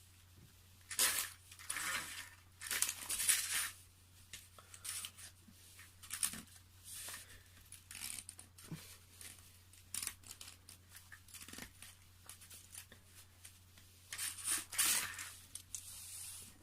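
A strip of thin paper run through the pinion and spur gear mesh of a nitro RC car and pulled out again, crackling and tearing in two bursts, near the start and near the end, with small clicks and rustles between. This is the paper test for gear mesh: the gear teeth press a pattern into the paper.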